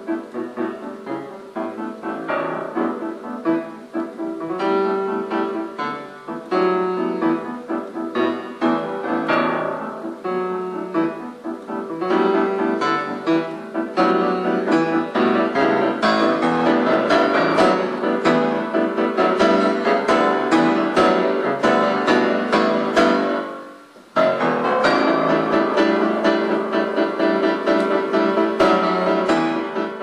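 Piano music with a steady run of notes, dipping briefly about 24 seconds in before carrying on.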